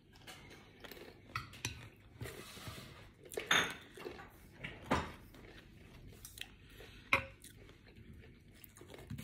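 Chopsticks clicking and scraping against a bowl while picking up food: several short, sharp clicks, the loudest about three and a half and five seconds in, between quieter chewing.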